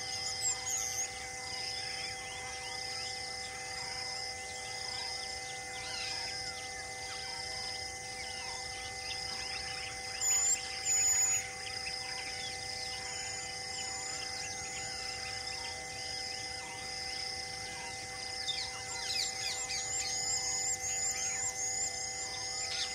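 Birds chirping and calling over a steady hum and a high pulse that repeats a little faster than once a second. A couple of loud high chirps come about halfway through, and the chirping grows busier near the end.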